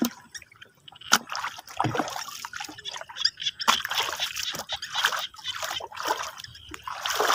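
Bare feet wading through shallow, muddy water, with irregular splashing and sloshing at each step, and one sharp click about a second in.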